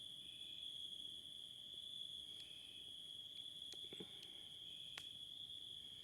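A cricket trilling steadily and high. A few sharp pops from a crackling campfire come about four to five seconds in.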